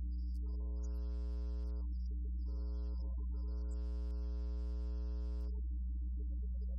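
Loud, steady electrical hum in the audio feed, with a buzz of straight higher overtones that swells up twice, from about half a second in to nearly two seconds and again from about two and a half to five and a half seconds.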